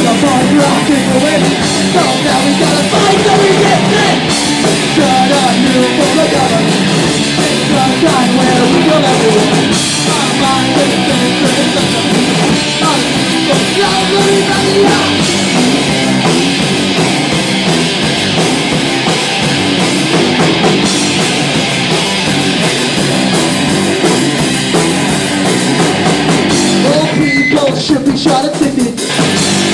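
Live punk rock band playing loud and fast: electric guitar and drum kit with singing. Near the end the music thins to separate drum hits.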